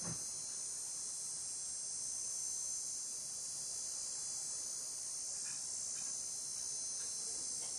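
Steady, high-pitched chorus of insects, many even trilling tones running together without a break, with a faint low knock right at the start.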